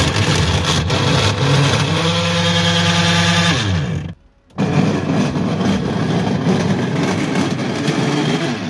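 Top-load washing machine running with a loud, harsh mechanical noise over a motor hum. The hum's pitch falls away about four seconds in, there is a brief break, and then the noise resumes. It sounds as if the gearbox were badly broken, though the repairer says the fault lies elsewhere.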